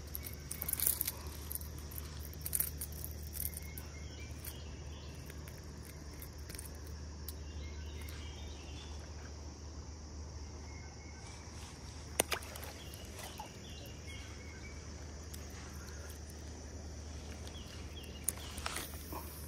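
Steady insect chorus shrilling in a high band, over a low steady rumble. A few short sharp clicks of handling sound about a second in, around twelve seconds in, and near the end.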